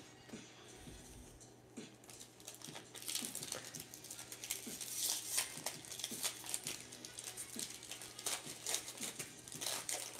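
Foil wrapper of a 2023 Bowman Platinum baseball card pack being torn open and crinkled by hand. The dense crackling starts about three seconds in and goes on as the wrapper is peeled off the cards.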